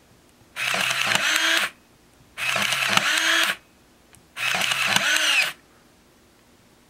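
Olympus Infinity Twin 35mm compact camera firing three times in a row, each shutter release followed by about a second of its built-in motor whirring to advance the film one frame.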